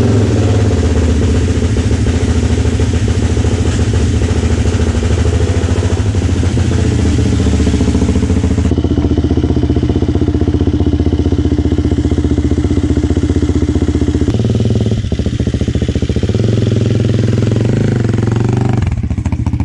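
Can-Am DS 450 quad's single-cylinder four-stroke engine running steadily, its pitch dropping off near the end.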